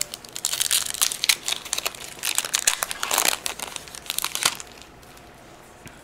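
Foil wrapper of a Pokémon trading-card booster pack being torn open and crinkled by hand, a dense run of crackles that dies away after about four and a half seconds.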